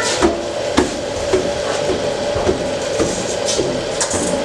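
Scattered light knocks and clatter over a steady background hum as dried black mushrooms are dropped by hand into a stainless steel cooking pot.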